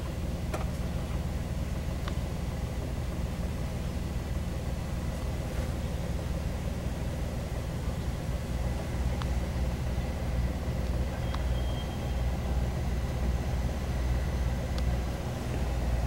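Small river car ferry's engine running steadily as the ferry crosses, a low rumble that grows a little louder in the second half as it nears the landing.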